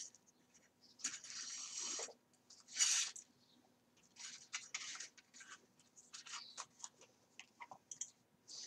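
Folded paper pages and waxed thread being handled while sewing a book: a papery rustle for about a second, a louder scrape near three seconds, then small scattered rustles.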